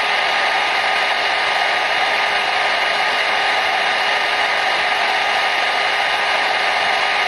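Hair dryer running steadily: an even rushing hiss of blown air with a few faint steady tones from the motor in it.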